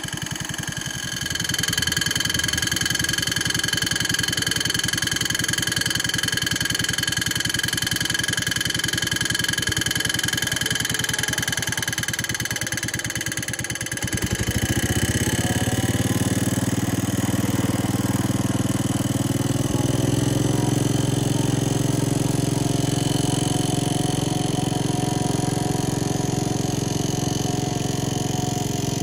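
Garden tractor engine idling with an even, pulsing beat and a steady high whine alongside, then throttled up about halfway through to a louder, faster steady run as the tractor drives off.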